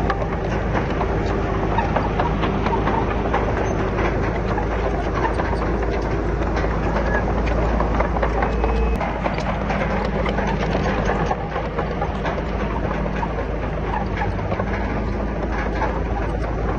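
Diesel engine of heavy earthmoving machinery running steadily, with frequent metallic clanks and rattles throughout.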